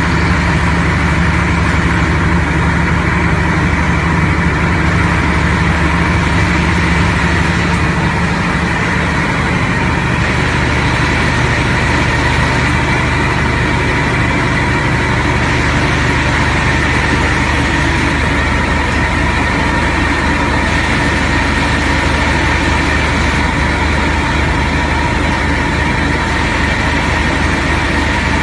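Heavy diesel engine running steadily, its note dropping a little about nine seconds in.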